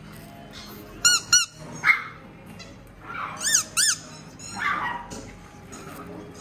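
Small dogs yipping: two quick high yips about a second in and two more about three and a half seconds in, with rougher barks between, over background music.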